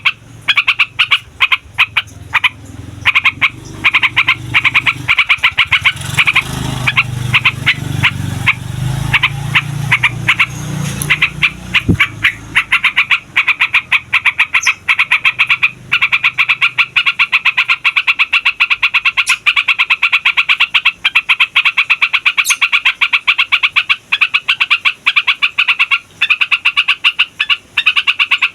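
Yellow-vented bulbul singing a long, rolling song: rapid chattering notes repeated almost without a break.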